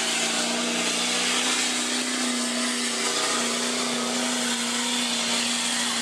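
Chevrolet Silverado diesel pickup engine running flat out under heavy load as it pulls a weight-transfer sled, a steady high drone that holds its pitch over a wide rushing hiss.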